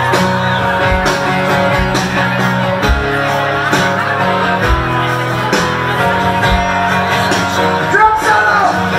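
Live country music through a PA: a strummed acoustic guitar with a man singing.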